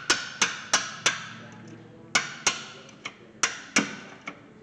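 Ratchet wrench clicking in short back-strokes while loosening a rear brake caliper bracket bolt: sharp metallic clicks about three a second, in small groups with short pauses between.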